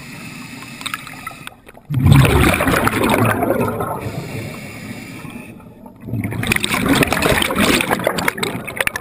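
Scuba diver breathing through a regulator underwater: two long exhalations, each a loud burst of bubbles rushing past, starting about two seconds and six seconds in, with a quieter stretch between.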